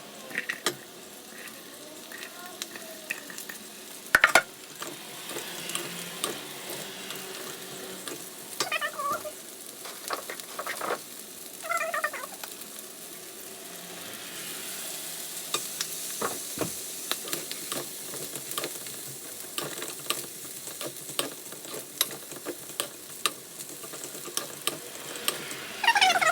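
Fried rice sizzling in a hot pan while it is stirred, with the spatula clicking and scraping against the pan and one sharp knock about four seconds in. A cat meows briefly twice near the middle.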